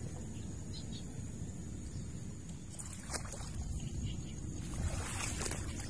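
Wind buffeting the microphone: a steady low rumble, with a couple of faint clicks about three and five seconds in.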